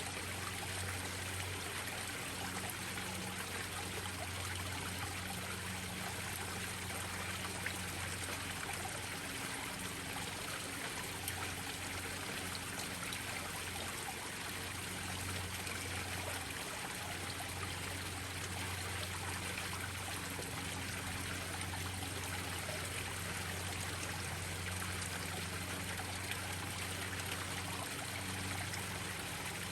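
Small garden-pond waterfalls splashing and trickling steadily into a koi pond.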